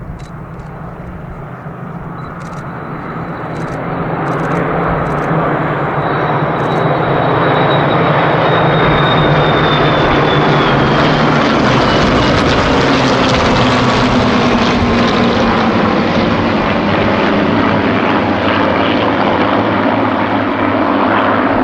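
Formation of Spitfires and Hurricanes flying past, their piston engines growing louder over the first several seconds and then holding a loud, steady drone, with the pitch sliding down as they pass.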